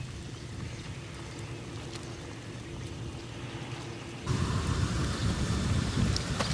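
Low, steady outdoor background, then about four seconds in a louder steady hissing, bubbling noise comes in suddenly: a pot of tomato stew simmering on a grill over charcoal.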